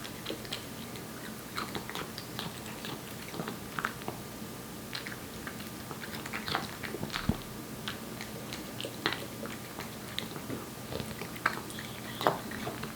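A cat eating wet cat food up close: irregular wet smacking and chewing clicks, with a light steady hum beneath.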